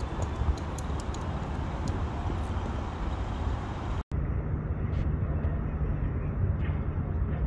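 City street ambience: a steady rumble of road traffic. About four seconds in it drops out for an instant and resumes duller, at an edit between two recordings.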